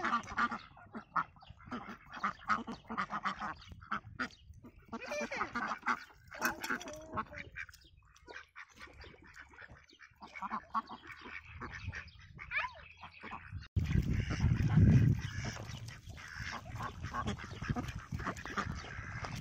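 A flock of domestic ducks quacking in short, irregular calls, many birds overlapping. About two-thirds of the way through, a low rumbling noise comes in under the calls and is the loudest sound.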